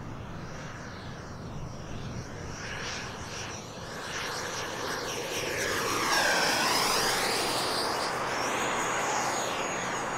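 Electric ducted-fan (80mm EDF) model F-18 Hornet jet flying by in a low fast pass, loudest about six seconds in. After the pass a steady high fan whine remains as it moves off.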